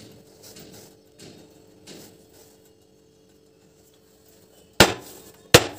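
A round metal cake tin full of batter knocked down hard on the counter twice, sharp knocks about three-quarters of a second apart near the end. Tapping the tin like this settles the batter and knocks out air bubbles before baking.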